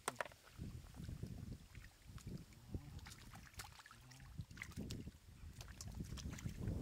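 Shallow muddy water sloshing and splashing as hands dig through the mud, with small, sharp splashes scattered throughout.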